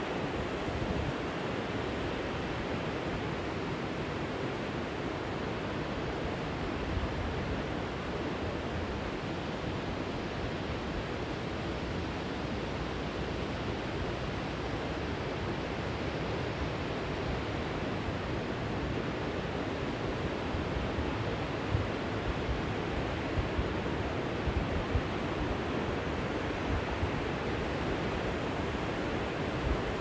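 Steady rushing of river water pouring over a long, low weir. A few short low wind buffets hit the microphone in the last third.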